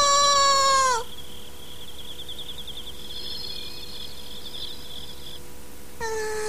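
The end of a long, drawn-out call of "Mamusiu!" ("Mummy!"), falling off about a second in, then a steady high trill of crickets for about four seconds. Near the end a voice gives a short falling sound.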